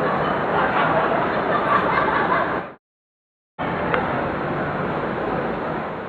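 Busy city street noise: a steady wash of traffic and passers-by. It cuts to dead silence for about a second midway, then comes back and fades out near the end.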